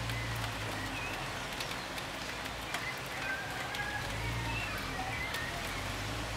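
Steady outdoor hiss with scattered ticks and a few faint, wavering high chirps around the middle, under a low intermittent hum.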